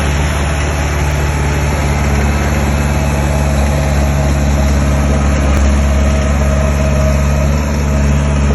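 Heavy construction machine's diesel engine running steadily at a constant speed, a loud low drone.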